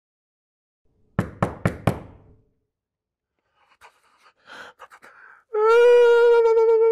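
Four quick knocks in a row about a second in, then faint breathing sounds. About five and a half seconds in, a man's long, high, wavering crying wail begins and carries on, slowly falling in pitch.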